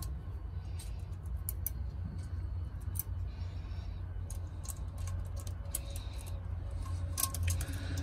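Small scattered clicks and ticks of wire leads and metal terminals being handled in a well-pump pressure switch, over a steady low rumble.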